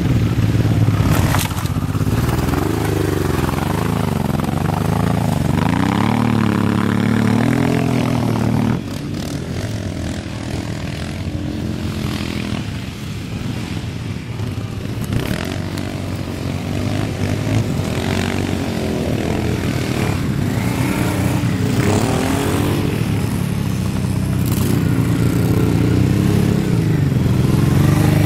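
Adventure-touring motorcycle engines revving up and down as the bikes accelerate through loose sand. The sound is louder for the first nine seconds or so, drops off suddenly, and then builds again toward the end.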